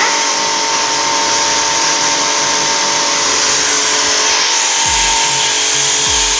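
Electric high-pressure washer running steadily: a motor and pump whine with the hiss of the water jet. Background music with deep bass notes plays underneath.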